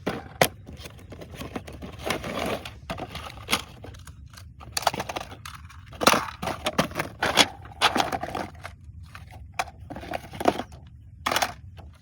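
Toy RC car packaging being handled and opened: cardboard and plastic rustling and crinkling, with many sharp clicks and knocks at irregular moments.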